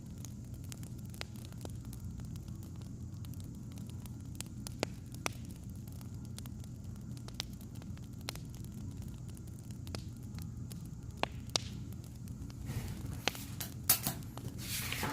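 Wood fire crackling over a steady low rumble, with scattered single pops and a quick run of louder snaps near the end.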